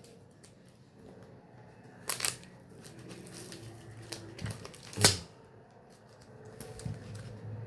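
Hands working at a CD's packaging: scattered plastic clicks and rustles, with a sharp click about two seconds in and a louder snap about five seconds in.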